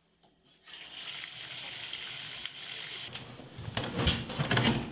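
Bathtub faucet turned on, water running steadily from the spout into the tub until about three seconds in. Near the end come several knocks and thumps, louder than the water.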